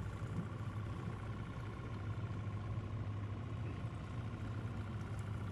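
A boat motor running steadily at idle: a constant low hum with a faint steady high whine over it.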